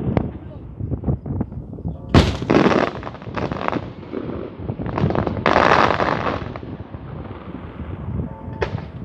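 Fireworks going off: a run of sharp bangs with crackling bursts between them. The loudest bang comes about two seconds in, and a longer crackling burst follows at around five and a half seconds.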